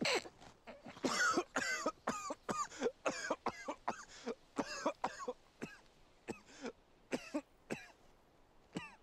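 A man coughing hard and repeatedly from inhaling marijuana smoke from a joint: a long fit of short coughs, close together at first, then further apart.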